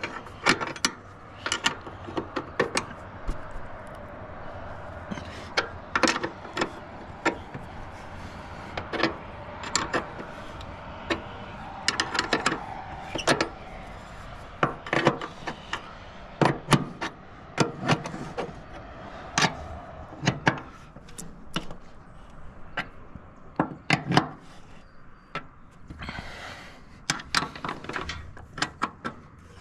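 A steel wrench clinking on bolts and knocking against the grain pump's sheet-metal housing as the bearing flange bolts are worked loose and tightened: irregular sharp metallic clicks and taps, some in quick clusters.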